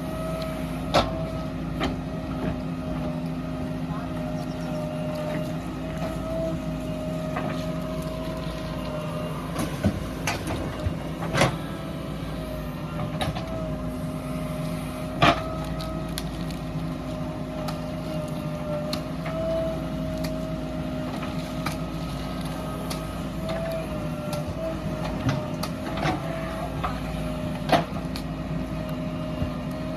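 Heavy diesel engine of the earthmoving machinery running steadily. Sharp knocks sound a handful of times, the loudest about a quarter of the way through and halfway through.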